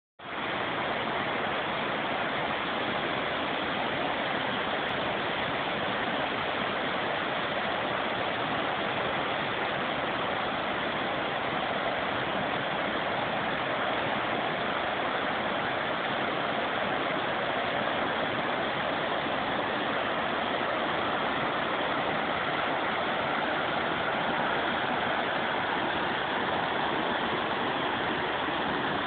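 Floodwater rushing in a steady, loud roar of noise without any pitch or rhythm.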